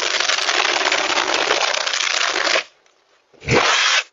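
Power tool grinding at the door, a loud harsh rasping that cuts off suddenly about two and a half seconds in, then a second short burst near the end.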